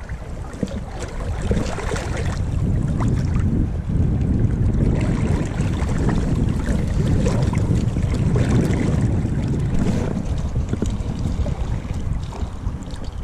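Flowing river water around the angler, with wind buffeting the microphone as a steady low rumble.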